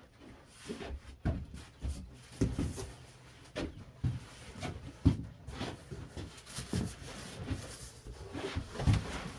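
Irregular thumps and knocks of a large cardboard box holding a miter saw being tipped onto its side and its packing shifted, with one sharp knock about five seconds in.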